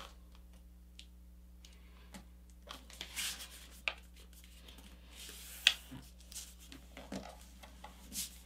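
A sheet of paper being folded and creased by hand: soft rustling and fingers sliding along the folds, with a few sharp crinkles as the creases are pressed down.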